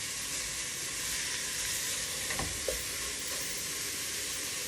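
Chicken pieces sizzling steadily as they brown in hot sausage fat in a pot.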